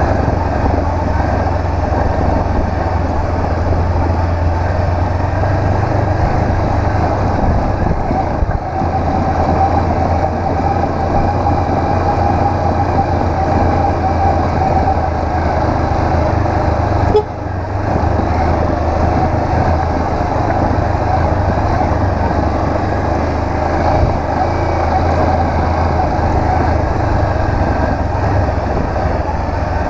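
Honda CB500X's parallel-twin engine running steadily as the motorcycle is ridden. There is one short knock a little past halfway.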